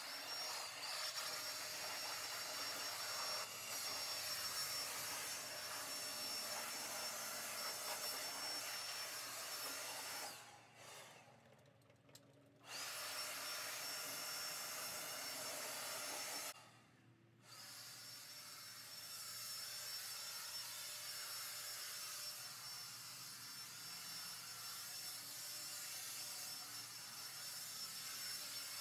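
Handheld cordless leaf blower running steadily with a high whine. It is cut off twice for a second or two and spins back up each time.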